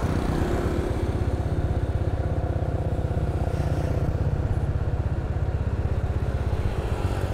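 Small motorcycle engine running steadily, with a fast, even firing pulse.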